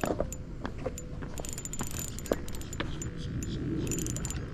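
Ultralight spinning reel being cranked while fighting a fish, giving a run of small mechanical clicks and rattles.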